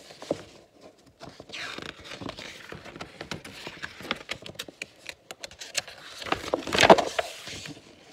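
Paper pages of a large picture book being handled and turned close to the microphone: crackling and rustling with many small clicks, the loudest rustle about seven seconds in.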